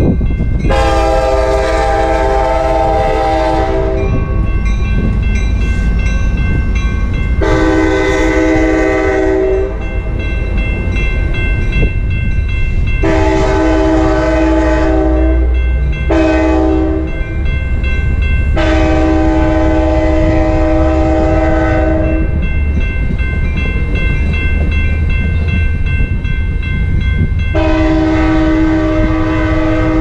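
Sounder commuter train's horn blowing for a grade crossing as the train approaches and passes: six blasts in all, two long, then long-short-long, and a last long one near the end. Under it a crossing bell rings steadily and the passing train rumbles low.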